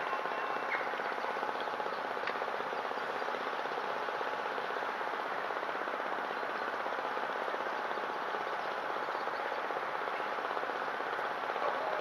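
Rain falling steadily, an even crackling patter.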